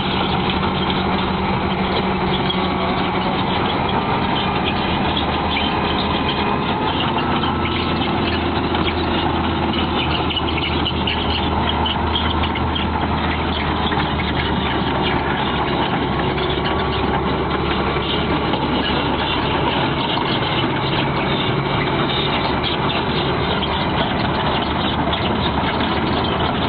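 Heavy construction machine's engine running steadily, a constant low hum.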